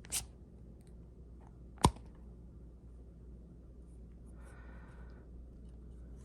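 Two sharp clicks from handling a Gedore ratcheting bit driver, likely its bit-storage handle being opened: a light click just after the start and a much louder snap about two seconds in.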